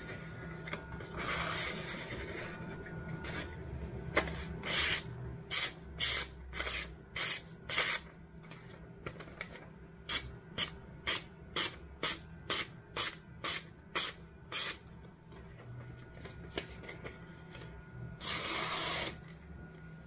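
Kitchen knife slicing through magazine paper in a paper-cutting sharpness test: a run of about twenty quick slicing hisses, about two a second, then one longer slice near the end.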